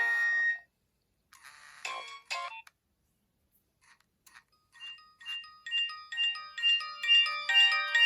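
Nokia 2600 ringtones playing. One melody ends just after the start, a short tone sounds about a second and a half in, and after a pause a new polyphonic ringtone begins about four and a half seconds in, with bell-like notes that repeat and grow louder.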